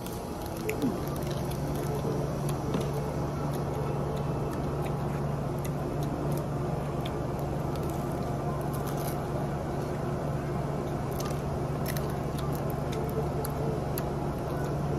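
Close-up chewing and crunching of crispy bánh xèo (Vietnamese rice-flour crepe) wrapped in lettuce, heard as many small scattered crackles and clicks, over a steady low hum.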